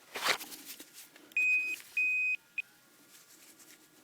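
Profind 25 metal-detecting pinpointer sounding two steady high beeps and a brief third blip as it picks up a metal target in the dug soil. A short rustle comes about a quarter of a second in.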